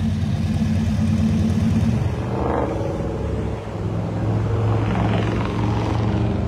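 Classic VW Beetle's engine running as the car rolls slowly past, a steady, good-sounding exhaust note that drops back about two seconds in. A deeper steady engine note takes over later.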